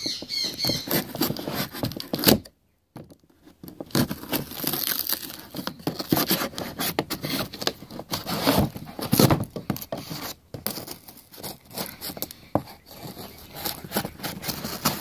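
Cardboard box being torn open: packing tape and cardboard ripping, scraping and crackling in irregular fits and starts, with a brief drop to near silence about two and a half seconds in.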